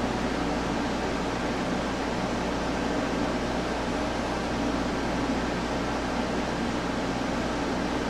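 Steady, even hiss with a low hum, the room noise of a fan or air-conditioner kind, unchanging throughout.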